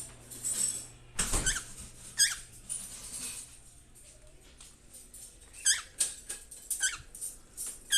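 Caged pet birds giving short, squeaky chirps at irregular moments, with a louder, fuller burst about a second in.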